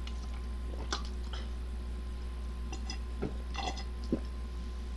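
A person drinking water from a plastic bottle: several short, soft gulps and sloshes, spaced about half a second to a second apart, over a low steady hum.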